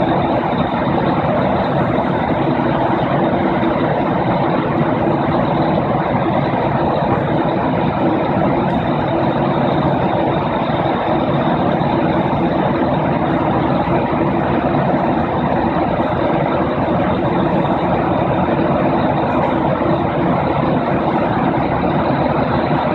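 Aircraft cabin noise in flight: a steady drone of engines and rushing air, with a constant high whine.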